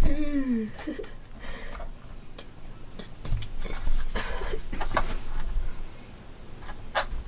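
A low, drawn-out voice-like tone falling in pitch, ending within the first second, then scattered short clicks, taps and rustles of a handheld camera being handled close to its built-in microphone.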